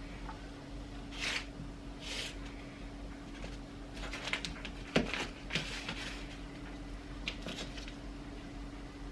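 Kitchen handling noises on a worktop: a few short rustles, a sharp knock about five seconds in with more rustling and clicking around it, over a steady hum.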